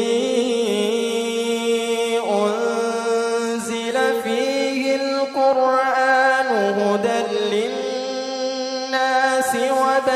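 A man's voice reciting the Quran in melodic tilawah style: long held notes that slide and turn into new pitches, richly ornamented, in one unbroken line.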